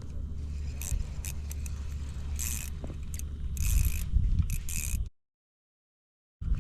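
A few short scraping and rattling noises, like gear being handled, over a steady low rumble. The sound cuts to dead silence for about a second near the end.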